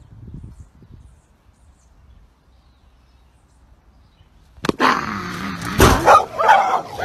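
A dog barking and yipping in quick succession, starting suddenly about two-thirds of the way in after a quiet stretch.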